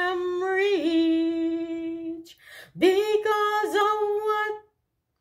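A woman singing a cappella, holding two long notes with small melodic turns. A short break separates them about two and a half seconds in.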